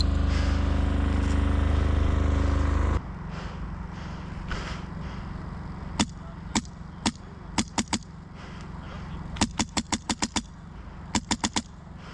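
A loud steady low hum that cuts off suddenly about three seconds in. After that comes airsoft rifle fire as sharp cracks: a few single shots, then two quick strings of rapid semi-auto shots, about seven and then about five.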